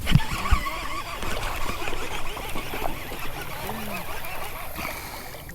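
Many birds calling at once in a dense chorus of overlapping short calls, with two sharp knocks about half a second apart near the start.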